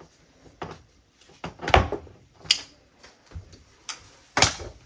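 Several sharp clicks and knocks as a rotary PEX tubing cutter is turned around the plastic pipe and the pipe and tool are handled, with the loudest knocks near two seconds in and near the end.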